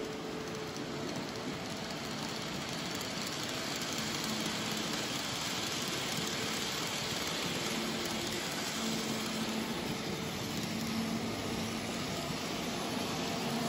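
N-scale model freight train rolling past on its track: a steady rolling whir of the cars' wheels with a faint hum that comes and goes.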